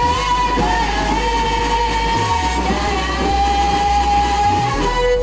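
Children's choir singing together in unison, holding long notes.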